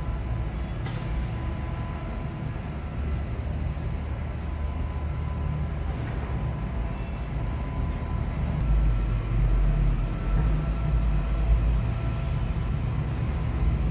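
Steady low rumble of background noise, growing somewhat louder a little past halfway through.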